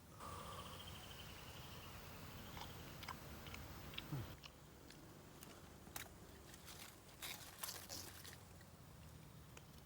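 A person biting and chewing food, with a scatter of sharp crunches, most of them in the second half.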